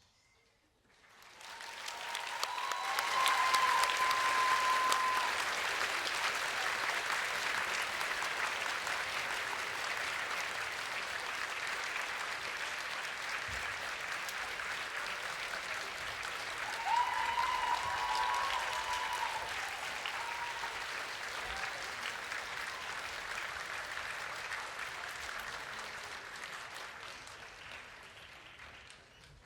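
Audience applauding at the end of a stage performance, swelling over the first few seconds and then slowly dying away.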